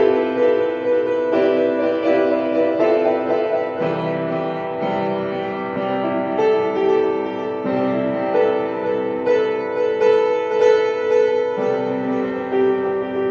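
Solo piano music: held notes and chords that change about once a second.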